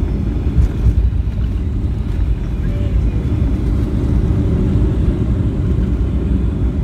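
Steady deep rumble heard inside the cabin of a Boeing 757-300 rolling along the runway on its landing run: tyres on the runway, the airframe and the engines together.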